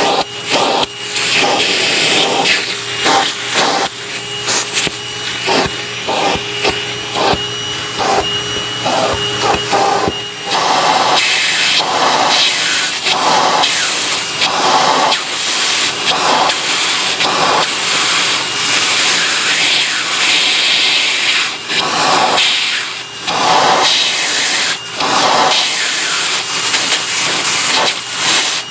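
National MC-250c vacuum cleaner running with its crevice tool, the suction hiss swelling and falling as the tool moves, with frequent short knocks and rubs of the tool. About ten seconds in the motor's steady whine fades and the hiss grows brighter.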